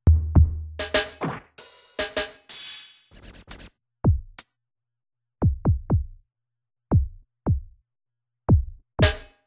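Yamaha DD-65 digital drum pads played with electronic drum voices. A deep boom and a run of quick hits with a crash-like wash come in the first three seconds, then single hits that drop sharply in pitch, struck at uneven intervals.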